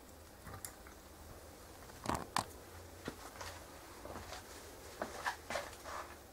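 Light clicks and knocks of a scale model truck being handled and set down on a display turntable. The loudest pair come about two seconds in, and a few fainter clicks follow near the end.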